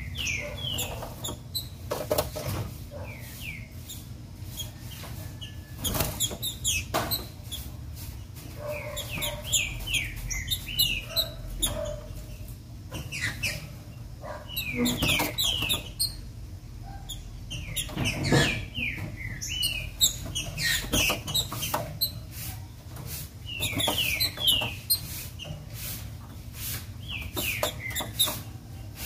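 Female green-winged saltator (trinca-ferro) calling in a cage: short descending chirps in quick runs of three to six, repeated every few seconds. Sharp clicks and rustles from the bird hopping and flapping on its perches mix in, over a low steady hum.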